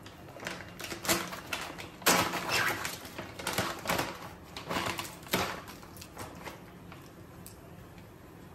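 Plastic food packaging being torn open and rustled by hand: a run of crinkling, tearing rustles, loudest about two seconds in and again about five seconds in, dying away after about six seconds.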